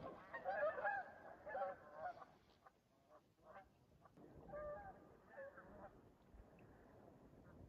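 A flock of Canada geese honking: a cluster of calls in the first two seconds, a lull with a few short calls, then a second cluster of honks from about four to six seconds in.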